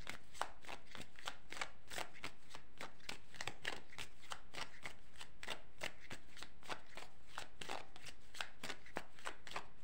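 Dense, irregular light clicking, several small clicks a second without a pause.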